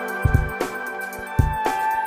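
Background music: sustained melodic tones over repeated drum hits.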